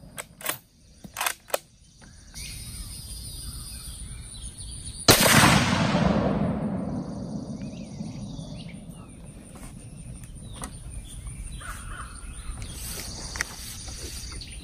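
A few sharp clicks of the Mossberg Patriot's bolt being worked, then, about five seconds in, a single .30-06 rifle shot whose loud report echoes and dies away over a couple of seconds.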